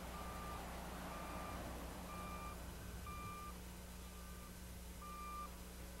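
A vehicle's backup alarm beeping faintly and steadily, about once a second, six short beeps at one pitch, over a low steady hum.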